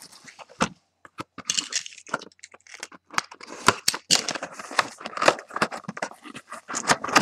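Plastic shrink wrap crinkling and tearing, and a cardboard trading-card hobby box being handled and its lid flap opened, in a string of irregular crackles and rustles.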